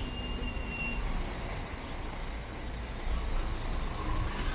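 Busy city street traffic: a steady rumble of passing cars and buses.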